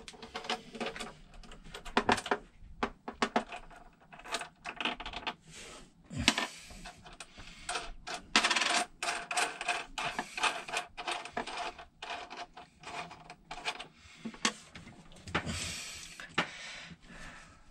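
Irregular metallic clicks and clinks of cable lugs, nuts and small hardware being handled and fitted onto battery terminals.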